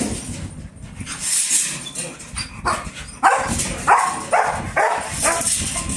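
A dog barking in a quick run of short barks, about two a second, starting roughly three seconds in, as it 'says hi' when prompted.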